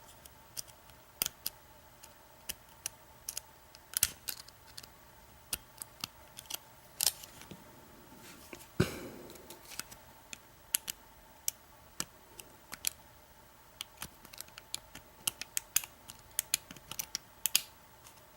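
Hook pick working the pins of an American 1100 padlock during single-pin picking: irregular sharp metal clicks and scrapes as the pick pushes up a long pin. The clicks come unevenly, a few louder ones among them, the loudest about nine seconds in with a short ring after it.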